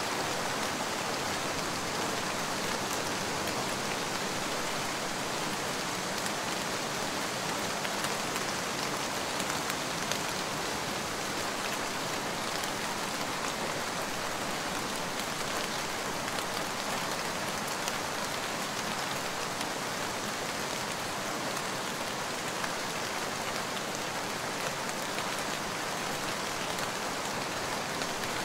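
Steady rain-sounds recording: an even hiss of falling rain with faint scattered drop ticks, unchanging throughout.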